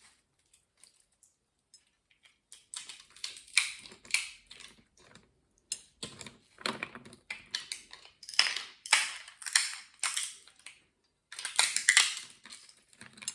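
Walnut shells cracking and crunching: irregular dry clicks and crunches that start a couple of seconds in and go on with a short pause near the end.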